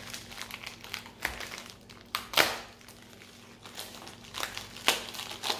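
Plastic packaging crinkling and rustling as a package is opened by hand, in irregular bursts, the loudest crinkle about two and a half seconds in.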